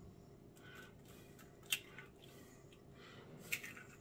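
Eggs being cracked into a bowl of ground meat and onion: a few faint shell clicks, about two seconds in and again near the end, over low room noise.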